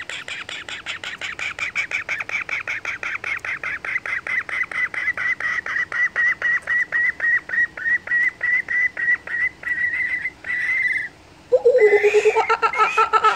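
Kookaburra hatchling giving a rapid run of short, high chirps, about six a second, the pitch easing slightly downward: a chick's food-begging call. The chirping stops about eleven seconds in, and after a brief pause a louder, lower sound with a wavering pitch takes over near the end.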